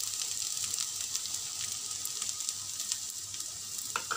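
Fried rice sizzling in a stainless steel pan: a steady hiss with scattered small crackles.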